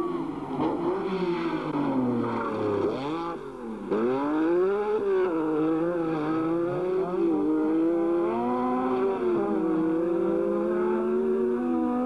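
Rally car engine revving hard at speed, its pitch repeatedly climbing and falling through the gears, with a sudden jump in loudness about four seconds in.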